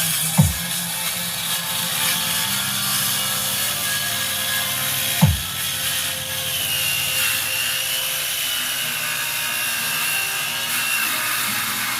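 Sound-check playback through a subwoofer speaker system: a steady, dense noisy wash with two short bass drops that sweep down in pitch, one about half a second in and one about five seconds in.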